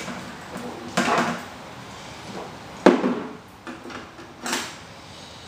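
Plastic quadcopter frame parts and dome arches being handled, knocking and clicking against each other and the table, with three separate knocks, the sharpest in the middle.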